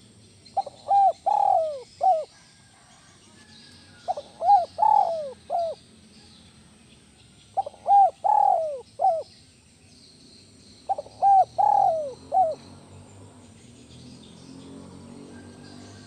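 Spotted dove singing: four cooing phrases a few seconds apart. Each phrase is a short run of falling coos with one longer, louder coo in the middle.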